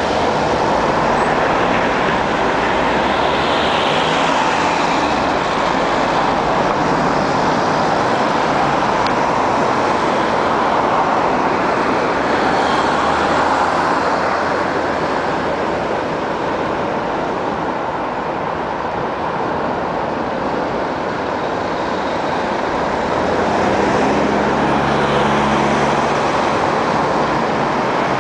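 Steady city road traffic noise of cars moving around a bicycle in mixed traffic. A nearby vehicle's engine hum comes in near the end.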